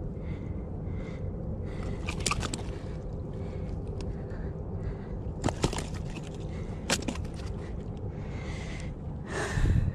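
Steady sea wash and wind on a rocky shore, broken by a few sharp clicks and knocks and a louder scraping rustle near the end.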